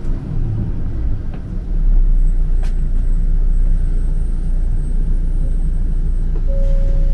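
City bus engine and running rumble heard from inside the passenger cabin. It gets louder about two seconds in and holds steady, with one sharp click near three seconds and a short steady tone near the end.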